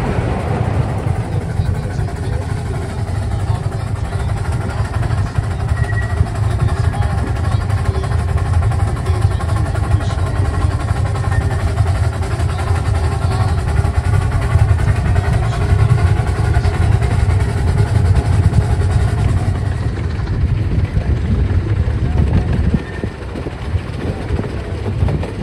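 Steady low rumble of a miniature ridable train running along its track, heard close up from on board behind the locomotive; it eases a little near the end.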